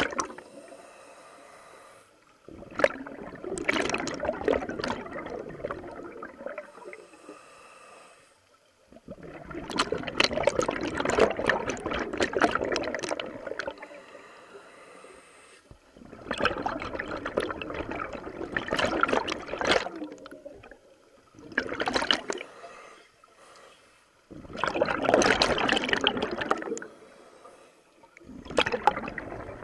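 Scuba breathing heard underwater: exhaled bubbles from a diver's regulator rushing and gurgling in bursts a few seconds long, about every five to seven seconds, with quieter stretches between breaths.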